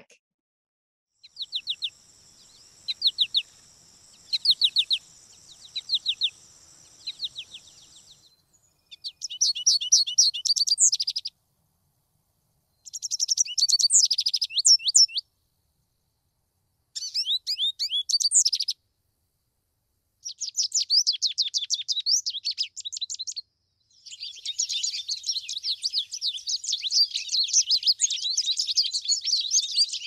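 American goldfinch vocalizations. First come short clusters of quick 'potato chip' flight-call notes over a steady high buzz. Then separate twittering phrases follow a couple of seconds apart, and near the end a long, jumbled, variable warble, the goldfinch's song.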